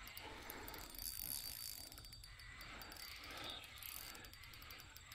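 Fishing reel clicking faintly in soft, repeated bouts while a big hooked carp is played on the line, with crickets chirping in the background.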